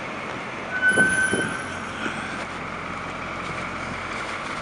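Cummins diesel engine of a 1946 Bickle-Seagrave tiller ladder fire truck idling steadily. About a second in, a single high ringing tone sounds and fades away over a second or so.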